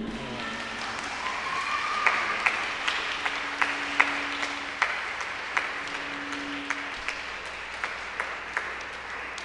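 Audience applauding, starting suddenly, with individual sharp claps standing out from the steady clapping.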